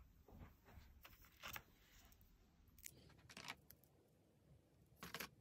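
Faint crinkling of the foil wrappers on chocolate eggs as they are picked up and handled, in a few short rustles about a second and a half in, around three seconds in and near the end.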